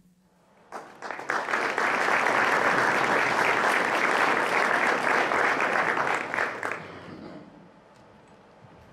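Audience applauding. The clapping builds up about a second in, holds steady for several seconds, then dies away over the last couple of seconds.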